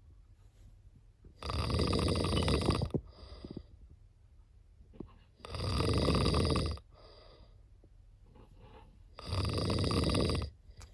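Cat snoring: three snores about four seconds apart, each lasting just over a second, with quiet breathing between.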